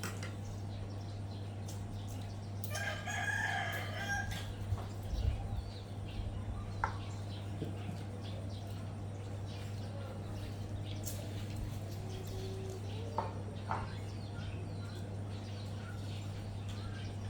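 A rooster crowing once, about three seconds in, over a steady low hum.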